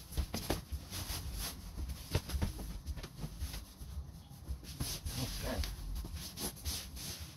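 White fitted bedsheet rustling and scraping as it is pulled taut over the mattress and tucked around the corners, with irregular soft knocks and brief pitched sounds a little past the middle.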